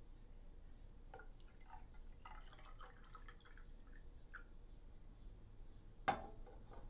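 Water poured from a tall glass into a drinking glass: a faint trickle with small splashes and drips. About six seconds in, the emptied glass is set down on the tabletop with a sharp glassy clink.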